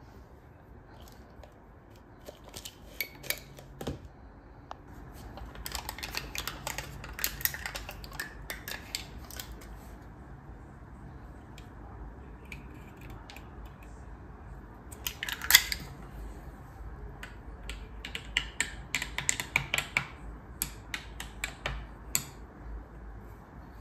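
Kitchenware being handled: a run of irregular clinks, clicks and knocks of dishes and utensils, the loudest about halfway through, over a steady low hum.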